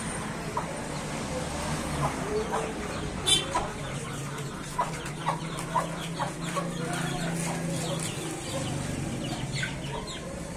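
Domestic chickens clucking: a hen and her chicks giving a run of short calls, several a second, with one sharper, louder call about three seconds in.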